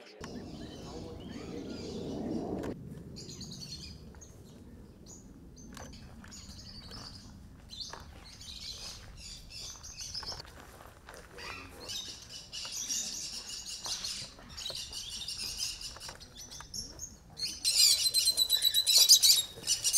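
Small birds chirping and twittering. A low rushing noise sits under them for the first couple of seconds, and near the end the chirping turns into a much louder, dense chatter.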